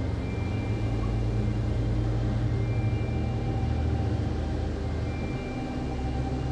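Background music: long held synth notes that change every second or two over a steady low drone.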